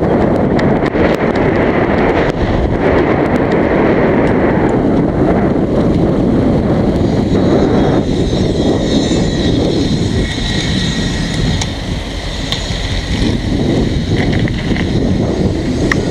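Steady wind rush and buffeting on the microphone of a camera on a moving mountain bike, mixed with the rolling rumble of its knobby tyres on a paved path.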